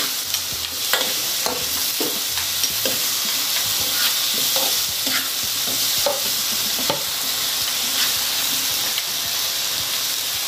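Pineapple chunks and garlic sizzling in oil in a nonstick frying pan, stirred with a spatula that clicks and scrapes against the pan about once a second.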